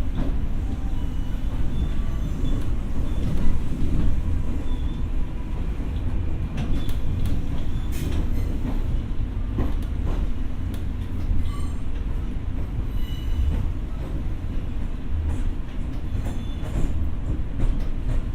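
Running noise heard inside a Tokyo Metro 6000 series electric train car: a steady low rumble of wheels on rail, with scattered clicks and knocks and a few faint high squeals.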